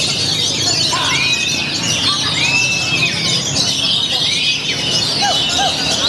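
Many caged songbirds singing at once, oriental magpie-robins among them: a dense, unbroken chorus of quick chirps and trills, with a few longer arched whistles standing out about one, two and a half and four seconds in.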